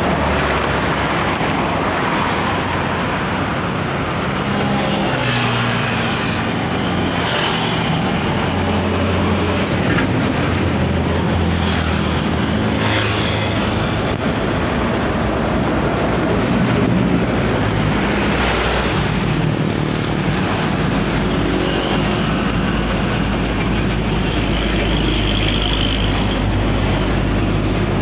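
Tegal Bahari passenger train running: a loud, steady rumble of wheels and rails with a low engine drone that shifts in pitch now and then.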